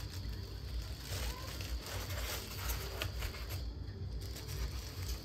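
Plastic packing bags crinkling and rustling as parts are handled in a foam-packed box, over a steady low hum.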